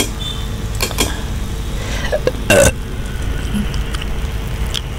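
Steady low hum of microphone room noise with a few sharp clicks, likely computer mouse clicks while folders are opened. About two and a half seconds in comes a brief throaty mouth sound, like a throat clearing.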